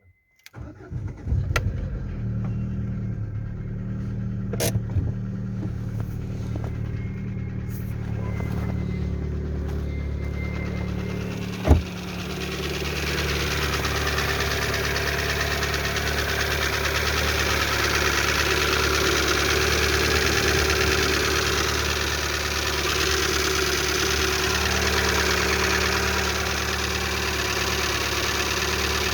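Lada Largus's 1.6 16-valve VAZ-21129 engine cranking and catching on a cold start, then settling into a steady idle with a clatter from the hydraulic lifters, a knock that replacing the lifters did not cure and that fades as the engine warms. A single sharp click about twelve seconds in.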